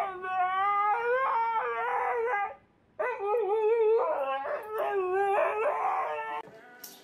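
A husky howling in long, wavering howls that rise and fall in pitch. It breaks off briefly about two and a half seconds in, starts again, and stops a little before the end.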